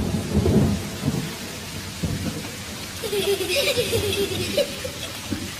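Rain falling with a low rumble of thunder in the first second. A short wavering call sounds over it about three seconds in.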